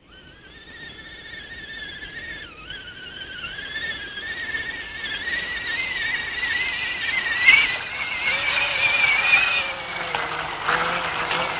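Radio-controlled off-road truck's motor and drivetrain whining, the pitch wavering and slowly rising as the sound grows louder. In the last few seconds, water splashes and churns as the truck wades through the muddy pond.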